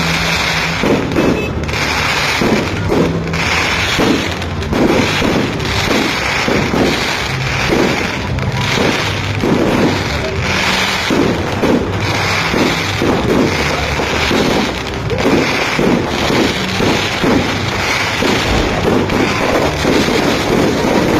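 Fireworks display: a rapid, continuous string of bangs and crackles, several a second.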